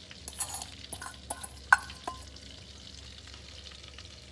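Diced chicken tipped from a stainless-steel bowl into a pot of boiling chicken broth, with a short splash, then several clinks of the metal bowl against the pot. The loudest is a ringing clink a little under two seconds in, all over the steady boil of the broth.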